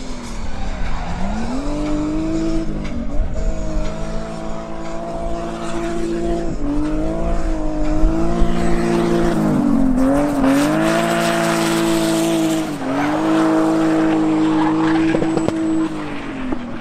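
Ford Sierra drift car with a 2.5-litre turbo engine running at high revs through a drift, its pitch dropping and climbing back several times, with tyres squealing, strongest past the middle.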